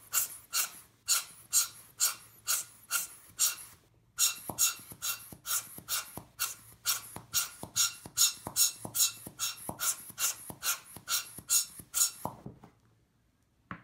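Hand-squeezed rubber bulb air blower puffing air into a DSLR's open lens mount to blow dust off the mirror, a quick hissing puff about twice a second. The squeezing pauses briefly about four seconds in, and later puffs carry a small click, before it stops shortly before the end.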